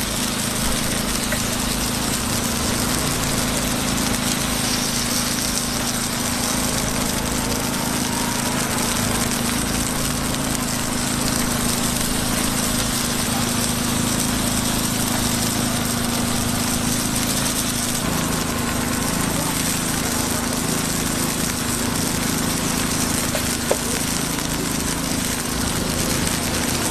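A small engine or motor running with a steady hum over a constant hiss.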